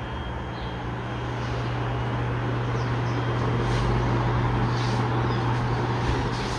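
Ventisol Fênix ceiling fan running, a steady motor hum under the rush of air from the blades, growing a little louder about two seconds in.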